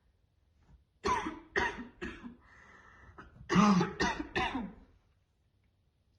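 A woman's harsh, barking smoker's cough: three coughs in quick succession about a second in, a brief breathy sound, then a louder run of three more coughs that stops about five seconds in.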